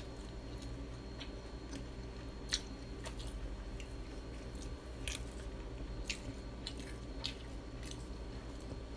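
Close-miked chewing of crispy fried calamari: a mouth working through battered squid rings, with irregular sharp crunches and crackles every second or so over a steady low hum.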